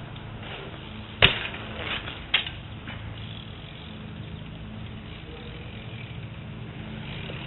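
A sharp knock about a second in, then a few lighter knocks over the next two seconds, over a steady low hum.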